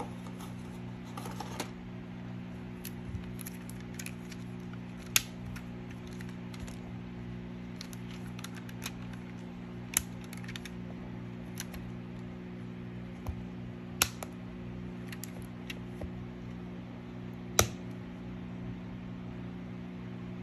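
Rubber bands being stretched and wrapped around a smartphone to clamp its freshly glued back cover: scattered sharp snaps and clicks, four of them louder than the rest, over a steady low hum.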